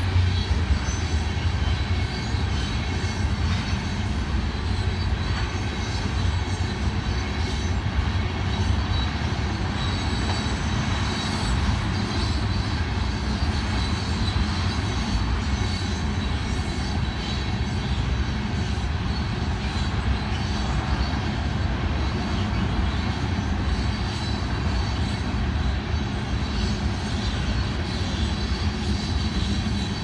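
A Union Pacific freight train of tank cars rolling steadily past, with a continuous rumble of wheels on the rail and a faint, thin, high wheel squeal over it.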